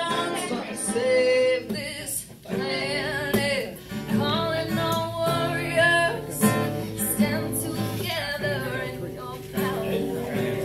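A woman singing while she plays an acoustic guitar, her sung phrases separated by short breaks.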